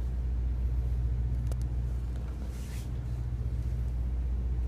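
Steady low engine hum inside a tour bus, with a brief click about a second and a half in and a short rustle just before the three-second mark.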